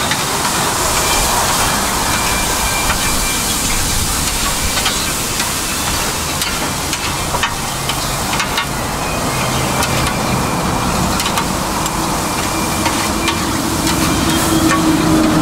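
Pork tripe and cabbage sizzling hard on a flat steel griddle, a steady loud hiss of frying and steam, with scattered sharp clicks.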